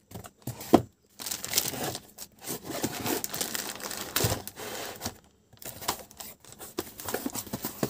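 Clear plastic bag crinkling and cardboard box flaps rubbing as an amplifier board is packed back into its box: an irregular run of crackles with a sharp click about a second in.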